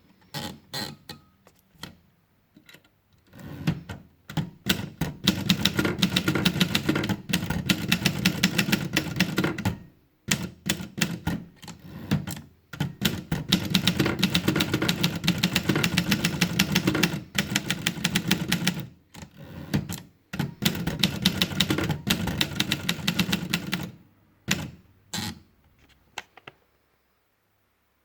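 Rheinmetall KsT manual portable typewriter being typed on: long runs of rapid keystrokes broken by short pauses, with a few single key strikes near the end.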